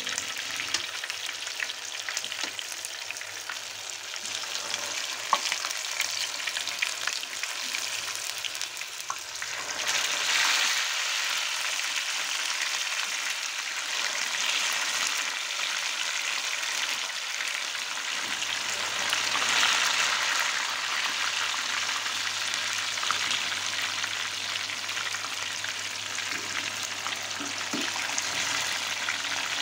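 Tahu bacem, tofu pre-boiled in spiced palm-sugar broth, frying in hot oil in a pan: a steady sizzle full of fine crackles. The sizzle swells about ten seconds in as more pieces go into the oil.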